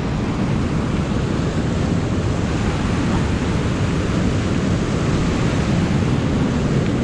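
Steady rush of river water churning over and below a low-head dam spillway, with wind buffeting the microphone.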